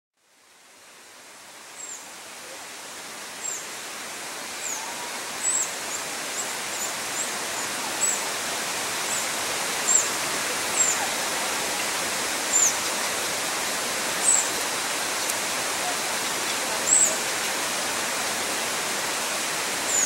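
A bird's short, high chip notes, each sliding down in pitch, repeated irregularly about once a second over a steady rush of flowing water that fades in during the first couple of seconds.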